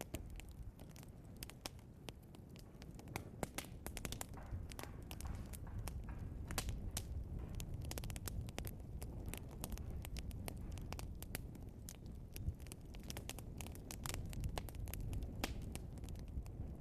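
Log fire burning with frequent crackles and pops over a steady low rumble of the flames.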